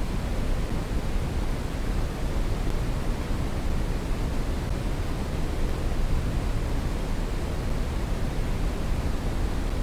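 Brown noise: a steady, even hiss-like rumble, heaviest in the bass and thinning out toward the highs, with no changes or events.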